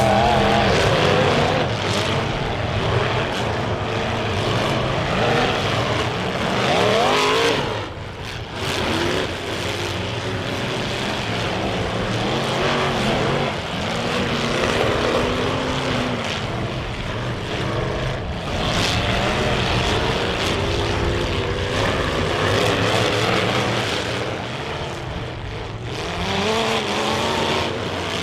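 Demolition derby cars' engines running hard and revving together, their pitch repeatedly rising and falling as the cars accelerate and reverse.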